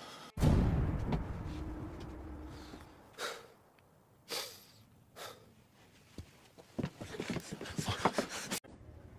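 Film sound: a sudden deep boom that dies away over a second or so. Then a man's heavy breaths, three of them about a second apart, and a rapid flurry of short clicks and rustles that cuts off abruptly near the end.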